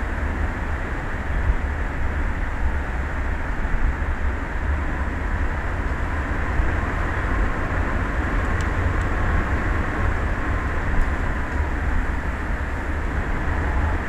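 Wind buffeting an outdoor microphone above the open ocean: a steady low rumble with a hiss of sea noise beneath.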